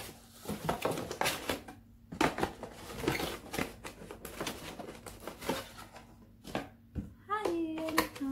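Cardboard packaging handled and opened: a run of quick rustles and scrapes as a cardboard binocular box and its inner tray slide against each other. Near the end a woman's voice starts a long, held sung note.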